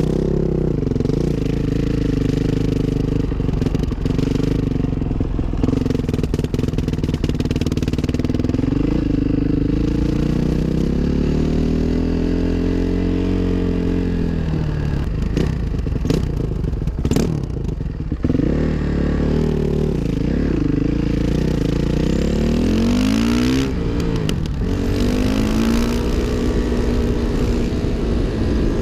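2005 Suzuki RM-Z 450's single-cylinder four-stroke engine under way, revving up and dropping back repeatedly as the rider accelerates and shifts through the gears.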